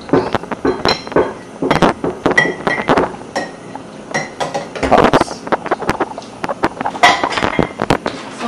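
Cups and dishes clinking and knocking together during dishwashing at a sink: many sharp, irregular clinks, some ringing briefly.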